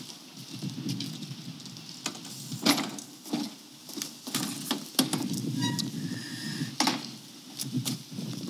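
Knocks and thuds of an aluminium-framed solar panel being stood on and lowered onto a metal sandwich roof panel and its mounting rails, with footsteps on the metal panel. About eight separate knocks, over a steady low rumble.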